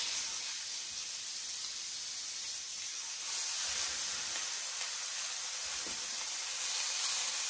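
Filet mignon steaks searing in smoking-hot canola oil in a cast iron skillet: a steady, hissing sizzle that grows a little louder about three seconds in, as another steak goes into the pan.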